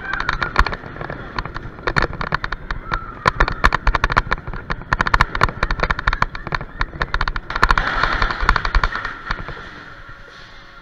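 Bobsled coaster car running down its metal trough, clattering and rattling with rapid clicks from the wheels and the car's frame. The rattle eases and goes quieter about nine seconds in.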